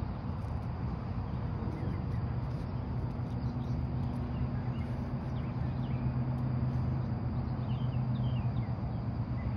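Steady low background hum, with a droning tone that swells from about two seconds in to past the middle, and faint short high chirps scattered through it.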